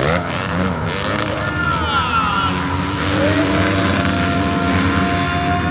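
Dirt bike engines revving, their pitch rising and falling, settling toward a steadier held note in the second half.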